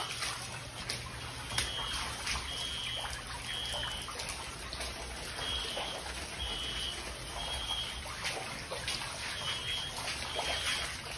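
Water running and trickling in a flooded house. Over it, an electronic alarm sounds short high beeps about a second apart, in groups of two or three with pauses between.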